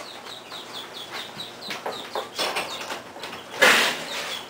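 Chickens clucking and peeping: a steady run of short high chirps, several a second, with louder clucks between them. About three and a half seconds in comes a loud burst of noise as a door is pushed open.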